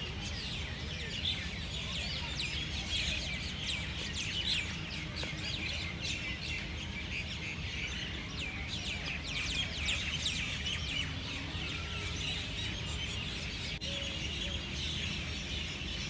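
A dense chorus of many birds chirping in the trees, short rapid chirps overlapping without pause, over a steady low rumble.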